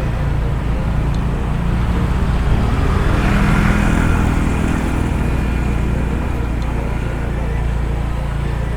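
Steady low hum of a vehicle engine running with road noise while driving, swelling for a moment about three to four seconds in.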